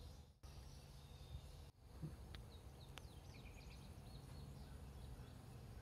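Near silence: faint outdoor ambience with a low steady rumble, and a few faint bird chirps from about two seconds in.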